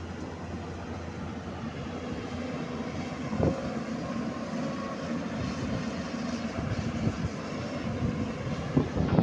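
Hyundai 210-7 excavator's diesel engine running steadily, with a single knock about three and a half seconds in.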